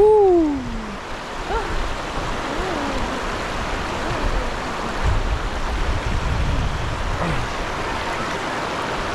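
Steady rush of flowing stream water. A voice gives a short falling cry right at the start, and a few faint vocal sounds come later.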